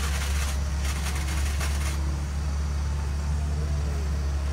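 Heavy truck's diesel engine running low and steady as the truck crawls over a rough dirt track, with two short bursts of hiss in the first two seconds.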